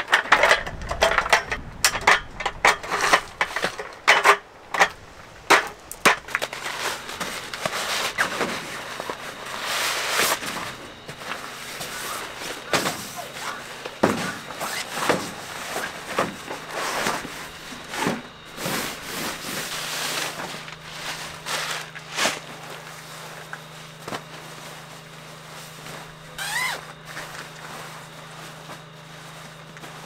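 Irregular clicks, knocks and rustling of a tent being pitched by hand, with the sharpest knocks in the first half.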